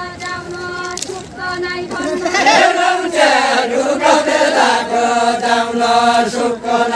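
A group singing a far-western Nepali deuda folk song in a chant-like chorus, with long held notes and no instruments. The singing grows louder about two seconds in.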